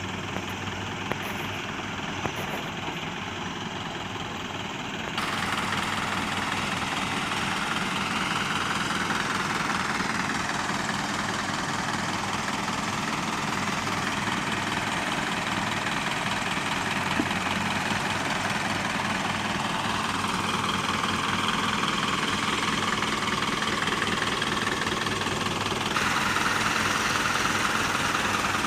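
Engine of an old Mitsubishi light dump truck idling steadily. The sound changes abruptly about five seconds in and again near the end.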